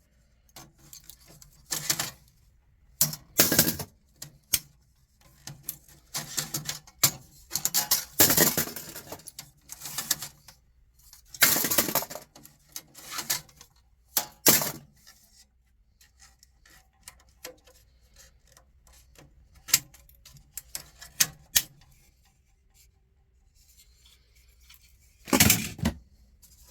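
Irregular metallic clicks, clanks and rattles of a steel server chassis and its drive trays being handled and pulled apart by hand. The clatter comes in bursts, with a quieter stretch of light ticks after the middle and a loud clank near the end.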